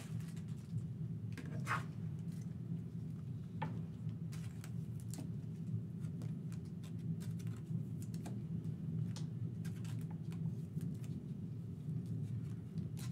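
Scattered faint, light clicks and taps over a steady low hum.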